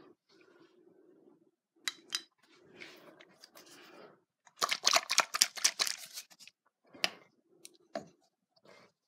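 Metal clicking and rattling from a glow plug cross wrench being handled: two sharp clicks, then a dense run of rapid clicks lasting about a second and a half near the middle, then a few single clicks.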